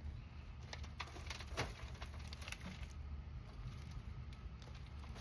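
Hands digging through loose potting soil in a fabric grow pot, with scattered rustles, crackles and light knocks as the soil is pushed aside and potatoes are turned up, over a steady low hum.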